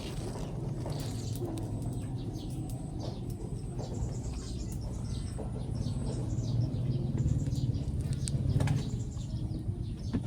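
Birds chirping in many short high calls over a steady low hum.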